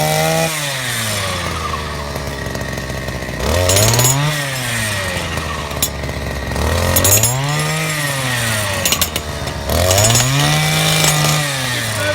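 A jackhammer's motor is revved up and down in repeated throttle blips. It drops back at the start, then climbs and falls three more times, with a rattling clatter near the top of each rev.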